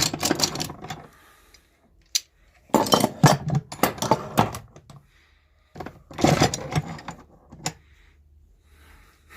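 Metal hand tools clinking and clattering against each other as a hand rummages through a box of tools, in three spells of clatter with short pauses between.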